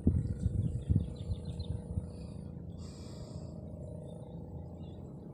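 Birds chirping: a quick run of about five high chirps about a second in and a short hissing call around three seconds, over a steady low rumble with a few dull thumps in the first second.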